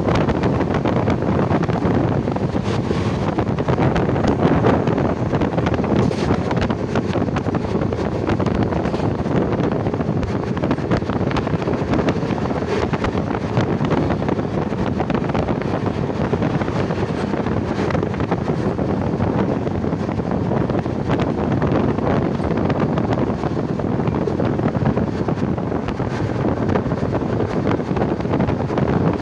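Steady wind rushing over the microphone, with the rumble of a moving vehicle underneath.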